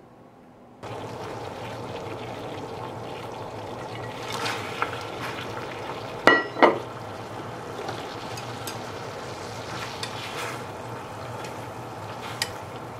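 Kitchen sounds: a steady hiss with a low hum starts about a second in, with light taps and, a little past the middle, two sharp ringing clinks of kitchenware.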